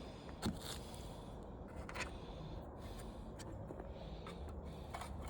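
Quiet background hum with a couple of faint, short clicks about half a second and two seconds in.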